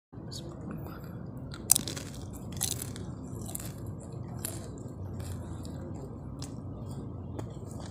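Close-up eating sounds of nasi Padang eaten by hand: chewing and mouth clicks with short sharp crackles as the hand works the rice on its paper wrapping, the loudest about two seconds in, over a steady low hum.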